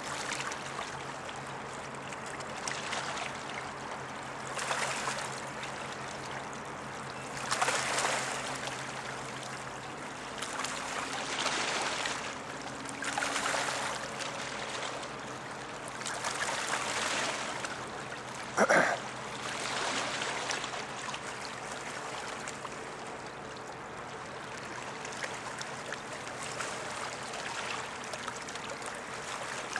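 Small waves washing and trickling over a stony riverbank, swelling every two to three seconds, with a faint steady low hum underneath. A single short, sharp sound stands out about nineteen seconds in.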